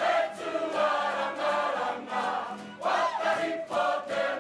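A women's kapa haka group singing a Māori waiata poi in unison, with light taps of swung poi striking hands and bodies in time with the song.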